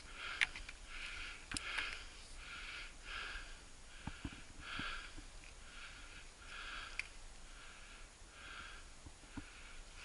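Quick, rhythmic breathing close to the microphone, a breath in or out about every three-quarters of a second, with a few faint clicks.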